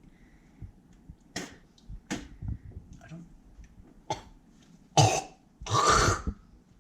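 A person coughing and clearing their throat: a few short coughs, then two louder, longer ones near the end, a reaction to a revolting mouthful of Greek yogurt mixed with beef broth.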